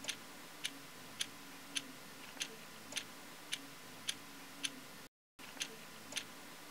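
Steady, even ticking, a little under two ticks a second, over a faint steady hum; the sound cuts out briefly about five seconds in, then the ticking carries on.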